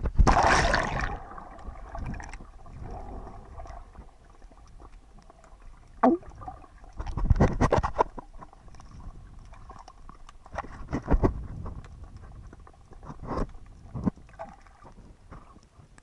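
A camera plunges into seawater with a splash, then picks up the muffled sound of a swimmer underwater. Low rushing surges of moving water come every couple of seconds, about four times.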